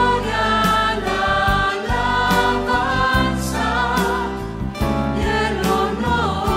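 Christian worship music: voices singing held notes over a band with a steady bass line and drums.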